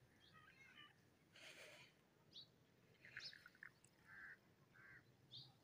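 Faint, scattered bird chirps and calls from several birds, a short call every second or so.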